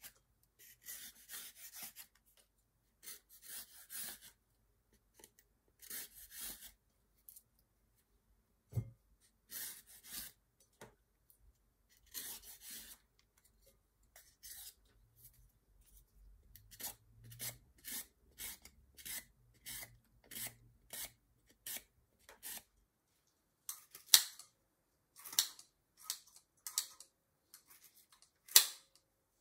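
A knife shaving bark off a green guelder rose (cramp bark) stem in repeated short scraping strokes. In the last few seconds come sharp snips of scissors cutting the stripped bark into small pieces.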